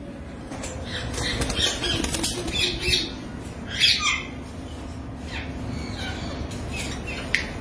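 Caged parrots calling in short, high squawks and chirps, with wing flapping; the loudest call comes about four seconds in.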